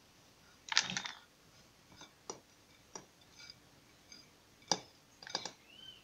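Light, scattered clicks and taps as handfuls of grated pumpkin are scooped by hand out of a glass bowl and dropped into a plastic bowl, with a short rustle about a second in and a sharper click near the end.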